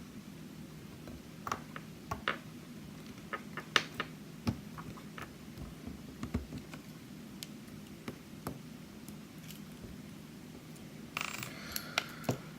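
Scattered light metallic clicks and taps of a challenge lock being taken apart, its C-clip being pushed off with the key, with a short scraping rustle near the end.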